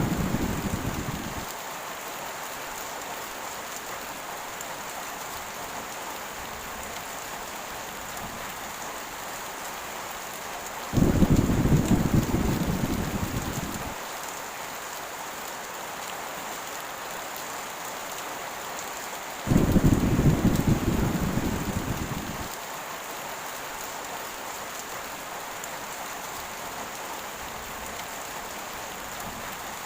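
Steady heavy rain with three rolls of thunder: one fading away in the first second and a half, another about 11 seconds in and a third about 19 seconds in, each starting suddenly and dying away over about three seconds.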